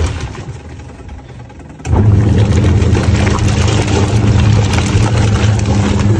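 Haier top-loading washing machine's wash motor running, churning a load of clothes in water with a steady hum. The motor stops briefly near the start, then starts again about two seconds in.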